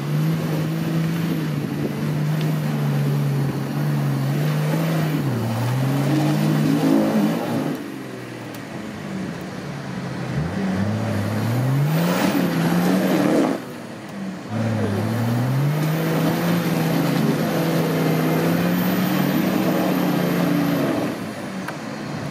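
Off-road 4x4's engine working under load, revving up and down in several surges. It is at its loudest and noisiest about halfway through, then drops off briefly before picking up again.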